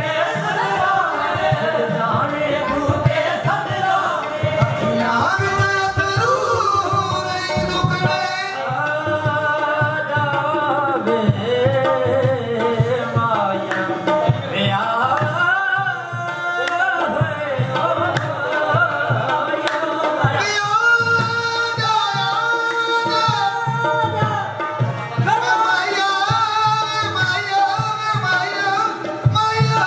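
Devotional singing with hand-drum accompaniment: a voice holding long, wavering notes over a steady drum rhythm.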